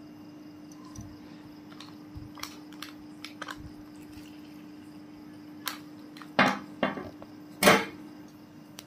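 A glass whisky bottle and plastic cups being handled on a hard tabletop while whisky is poured: a few light clicks, then several sharp knocks near the end, the loudest twice. A steady low hum runs underneath.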